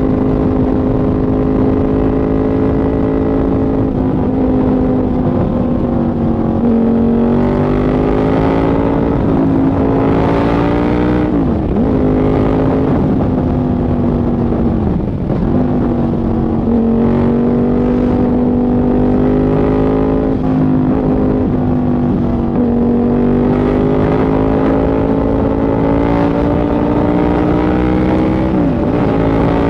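KTM 990 Super Duke's V-twin engine running at steady cruising revs while riding, its note drifting slightly up and down, with a few brief dips and rises in pitch.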